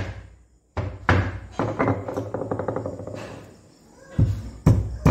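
A stone pestle knocking on boiled elephant apple slices laid on a flat stone grinding slab, crushing them. There are several sharp thuds, a quick rattling grind between them, and a fresh run of knocks near the end.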